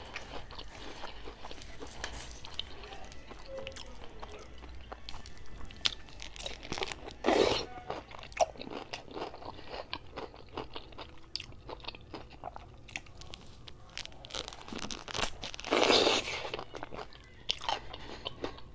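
Close-miked eating of a whole pickle: steady wet chewing with small clicks, and two loud crunchy bites into the pickle, about seven and sixteen seconds in.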